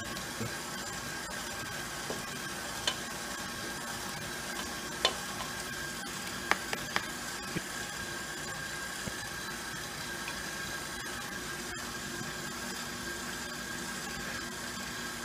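KitchenAid stand mixer running steadily with a steady hum, driving the fruit and vegetable strainer attachment as cooked apples are pressed through it. A few short sharp clicks come between about three and eight seconds in.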